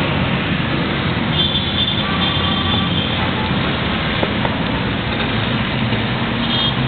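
A fireworks display: a steady, dense mix of rumbling and crackling from many shells, with no single loud boom standing out.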